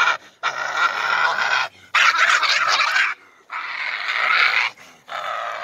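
Fight between a pit bull and a badger: four long harsh, rasping sounds of about a second each, separated by short pauses, repeating about every one and a half seconds.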